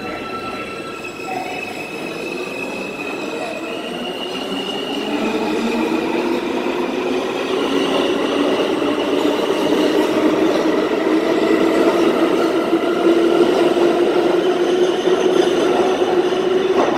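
R160 subway train accelerating out of the station: a rumble of wheels on rail with a whine of several tones rising slowly in pitch, growing louder as the cars speed past.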